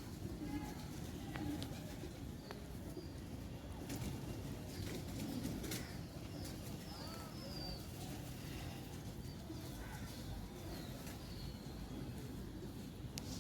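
Domestic pigeons cooing in a flock, with a few short high chirps from other birds.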